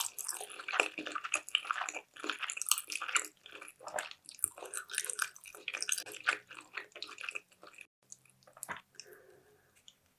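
Close-miked wet chewing and mouth sounds of someone eating sushi: dense irregular smacks and squishes, thinning to a few scattered clicks near the end.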